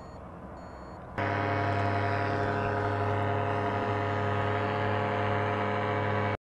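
A steady mechanical drone, like an engine running at constant speed, that cuts in abruptly about a second in and stops suddenly near the end.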